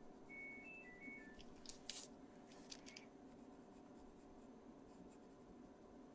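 Faint electronic beep tune from a washing machine signalling that its cycle is finished: a short run of high notes at different pitches, ending about a second and a half in. A few scratchy strokes of a Caran d'Ache Pablo coloured pencil on paper follow.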